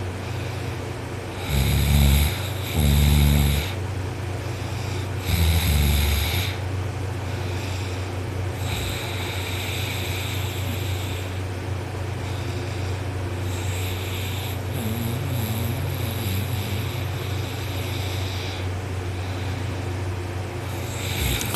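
A man lying asleep on his back, snoring loudly. Three deep, loud snores come in the first six seconds, then quieter breaths every few seconds, over a steady low hum.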